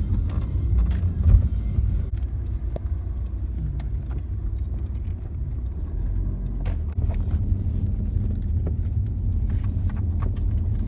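A car driving: a steady low rumble of engine and road noise, with scattered small clicks and rattles.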